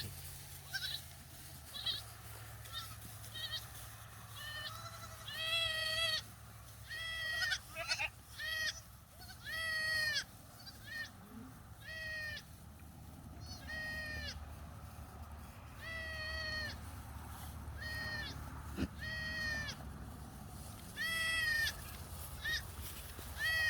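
Goats bleating over and over, a dozen or so short, high-pitched bleats coming every second or two, some in quick pairs.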